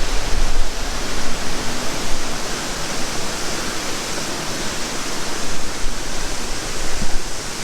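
Large waterfall pouring into its pool: a steady, loud, dense rush of falling water, with an uneven low rumble beneath.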